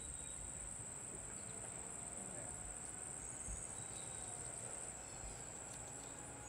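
Insect chorus trilling steadily: one even, high-pitched drone.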